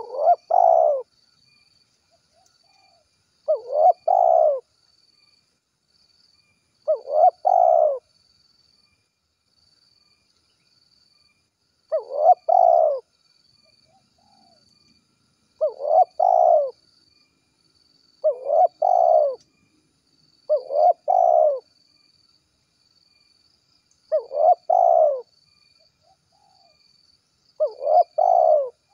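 Spotted dove cooing its 'kuk 1' song: nine short phrases, each a quick note and a longer coo, repeated every few seconds. Faint insect chirping goes on behind.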